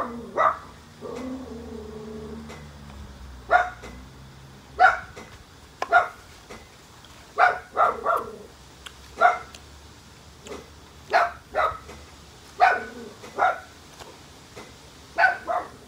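A dog barking repeatedly, single barks and quick runs of two or three, about every second or so.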